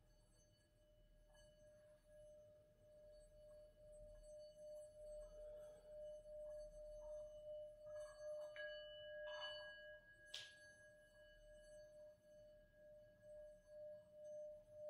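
A faint, sustained ringing tone with a few higher overtones, pulsing slowly in loudness, with a few soft clicks a little past the middle.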